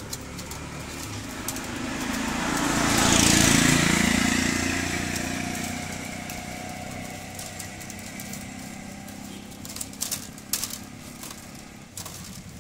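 A motor vehicle passing by: its engine swells to a peak about three seconds in, falling slightly in pitch, then fades away over the next few seconds. Near the end, light sharp clicks of bamboo strips knocking together as they are woven.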